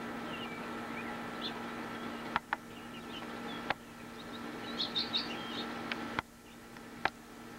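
House finches chirping: short high chirps scattered through, with a quick cluster about five seconds in, over a steady low hum. A few sharp clicks stand out as the loudest sounds.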